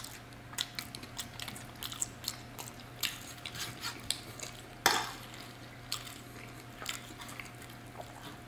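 Knife and fork cutting into a roast chicken on a ceramic plate: a run of small irregular clicks and scrapes of metal against the plate, with one louder clink about five seconds in. A faint steady hum sits underneath.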